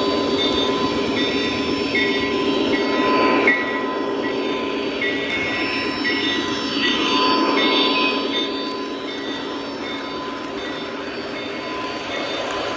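Lionel model train rolling along its track: a steady rumble and clatter of small metal wheels on the rails that swells twice, with a faint high tone coming and going.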